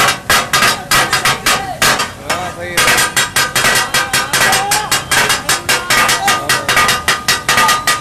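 Rapid, rhythmic clanging of a pair of metal chopping blades striking a large iron tawa griddle as katakat is chopped and mixed, about five to six strikes a second with a metallic ring. The beat thins briefly about two seconds in, then picks up again.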